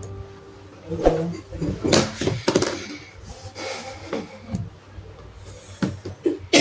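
Irregular knocks and rustles of tailoring tools being handled on a cutting table: a ruler is shifted and a cloth tape measure is pulled out and laid over fabric.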